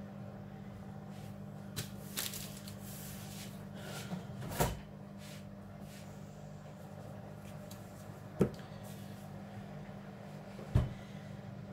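Scattered knocks and bumps of someone moving about a kitchen, with three sharp knocks about four and a half, eight and a half and eleven seconds in, over a steady low hum.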